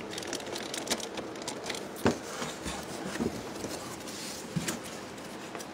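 Cardboard packaging rubbing and scraping as hands work the box flap open to pull a packaged toy out, with scattered clicks and light knocks, the sharpest about two seconds in.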